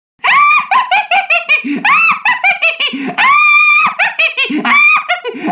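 High-pitched laughter starting suddenly after a short silence: a quick run of squealing, rising-and-falling giggles, some syllables drawn out.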